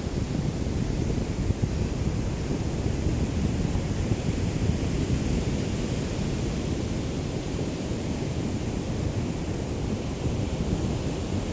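Small waves of a calm sea lapping on the shore: a steady wash of surf with a low rumble of wind on the microphone.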